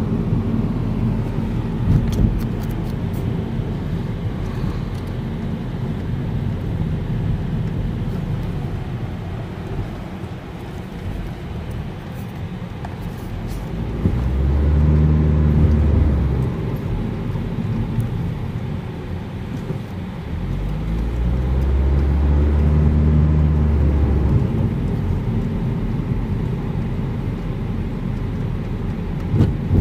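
Car driving, with a steady engine hum and road noise heard from inside the car. The engine hum grows louder twice, briefly about halfway through and again for a few seconds a little later.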